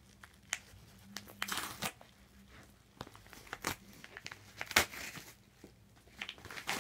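A shipped package being opened by hand: packaging crinkling and tearing in short bursts with scattered clicks, the loudest a sharp snap near five seconds in.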